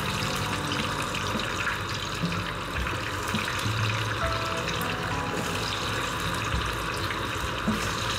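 Masala-coated potatoes and chicken drumsticks deep-frying in hot oil in a pan: a steady sizzling and bubbling.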